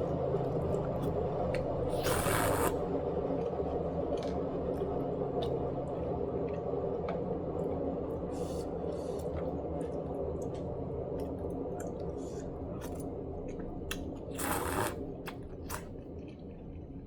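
Eating sounds: small clicks and scrapes of utensils on a food container, with two short rustling bursts, over a steady low hum.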